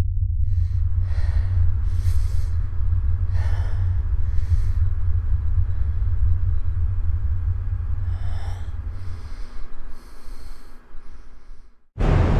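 A person breathing heavily, several breaths a few seconds apart, over a steady low rumbling drone. The drone fades out about nine seconds in, and after a brief silence a loud booming hit starts the music near the end.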